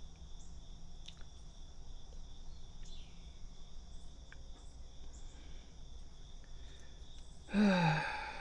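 Steady high-pitched chirring of crickets, with a few faint light clicks. Near the end a man gives a short groan that falls in pitch.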